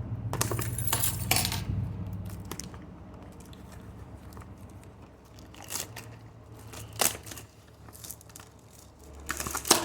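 Cardboard trading card hobby box and its foil-wrapped packs being handled and opened: crinkling, tearing and crunching in short bursts, busiest in the first second and a half, with a few single rustles later, over a low hum.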